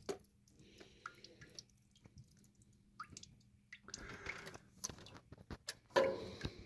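Water dripping irregularly from an opened copper water line, mixed with light clicks of metal pipe fittings being handled. A louder handling noise comes near the end.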